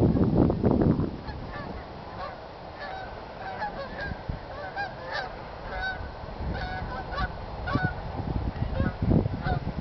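A flock of geese honking in flight, many short calls overlapping one after another. A loud rumble on the microphone covers the first second.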